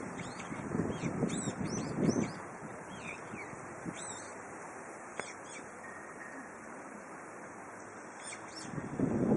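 Brown-eared bulbul calling: a string of short, high chirps and sweeping notes. Wind gusts on the microphone for the first two seconds or so and pick up again near the end.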